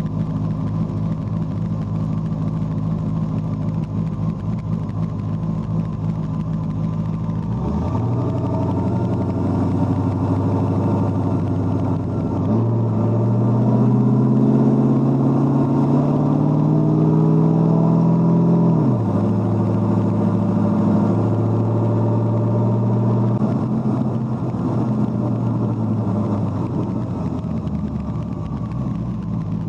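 Car engine heard from on board: a steady cruising drone, then about a third of the way in it goes to wide-open throttle and its pitch climbs, changes up once through the automatic gearbox, and keeps rising. About two-thirds in the throttle is lifted, the pitch drops sharply and it settles back to steady cruising.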